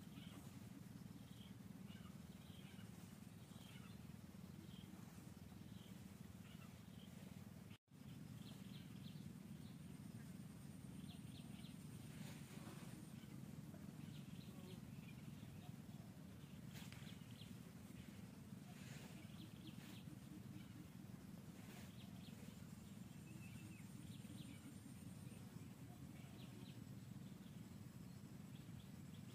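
Near silence: faint outdoor ambience with a steady low hum and scattered faint high chirps. The sound drops out completely for a moment about eight seconds in.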